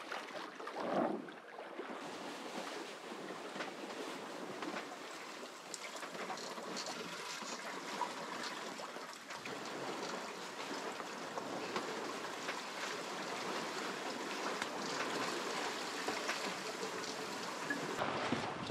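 Water rushing and trickling past a sailboat's hull as it moves through the sea, a steady hiss with no break.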